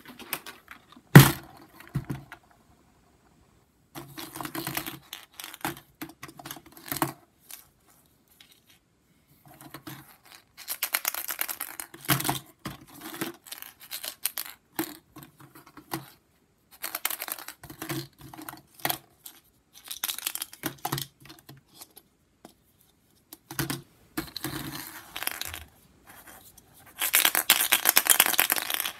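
Hollow plastic Easter eggs knocking and rattling against each other and the plastic bucket as hands rummage through them, in bursts with pauses between. A sharp click comes about a second in, and the longest, densest burst of rattling comes near the end.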